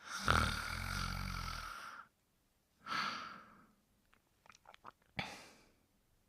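Snoring: a long rattling snore with a low buzz lasting about two seconds, a shorter breathy hiss, a few soft clicks, then a short sharp snort-like breath.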